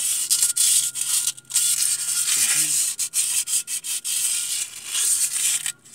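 Sandpaper rubbed back and forth by hand across the friction face of a Ford Ranger's flywheel, scrubbing off glazed clutch-lining residue. It is a steady, hissing scrape with a few brief pauses, and it stops just before the end.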